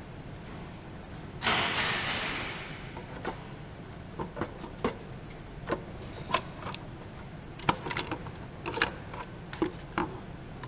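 Engine parts being handled by hand during work on the top of the engine: a scraping slide about a second and a half in, then scattered light clicks and knocks.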